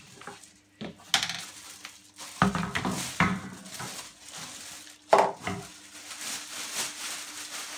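Clear plastic wrapping crinkling and rustling as a metal wire dish rack is pulled out of it. The rack clanks and rattles a few times, the loudest knock about five seconds in.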